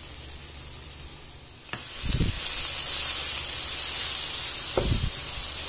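Chopped onion sizzling in hot oil in a non-stick frying pan as it is stirred with a wooden spatula. The sizzle is faint at first and turns loud and steady about two seconds in, with two soft thumps along the way.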